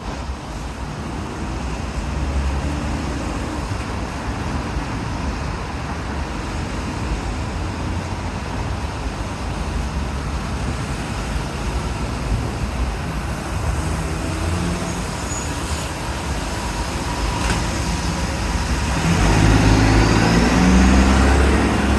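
Steady city street traffic: cars and heavier vehicles running past a busy intersection. Near the end, a large vehicle's engine rumble grows louder as it comes close.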